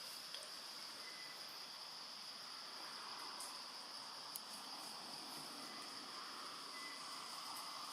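Steady high-pitched drone of insects, with faint clicks and two brief short tones over it.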